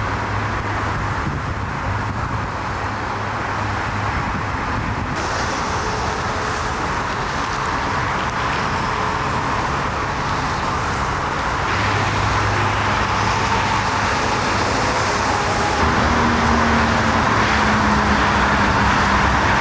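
Steady road-traffic and vehicle noise with a low engine hum underneath, shifting abruptly about 5, 12 and 16 seconds in. A second, higher hum joins near the end.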